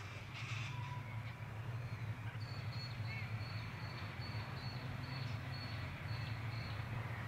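Outdoor ambience: a steady low rumble with a thin high whine through the middle, and a few short chirps near the start.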